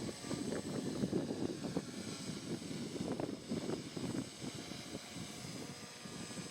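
Gusty wind buffeting the microphone during a multirotor drone's flight, with the motors' faint steady high whine underneath.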